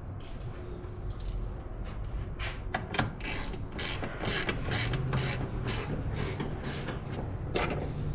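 Socket ratchet wrench clicking on its backstrokes as a bolt is run down tight. The ratcheting starts a couple of seconds in and goes on evenly, about two to three bursts a second.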